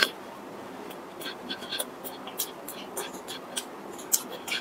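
Close-up mouth sounds of eating a soft steamed bun: a bite, then wet chewing clicks and lip smacks, about one or two a second, over a low steady hiss.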